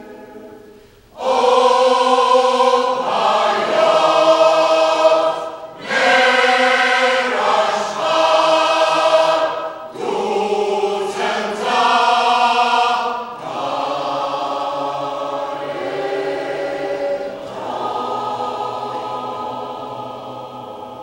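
Choir singing in concert. After a brief near-pause, the voices come in loudly about a second in and sing several full phrases with short breaks between them. From about two-thirds of the way through the singing turns softer and fades toward the end.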